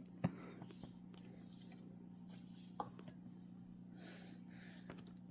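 Quiet room tone with a steady low hum, broken by a few soft clicks and faint rustles.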